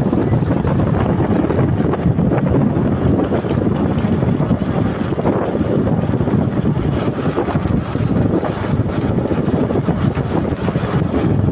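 Wind buffeting the microphone: a loud, steady rumble with no distinct tone.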